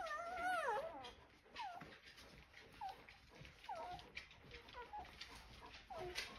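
Newborn Golden Retriever puppies crying: a longer wavering whine in the first second, then short, high, falling squeaks about once a second.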